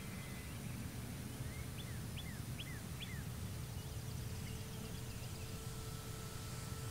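Faint, steady hum of a distant electric RC airplane's motor and propeller overhead. A bird chirps a quick run of about half a dozen notes around two seconds in, over a low background rumble.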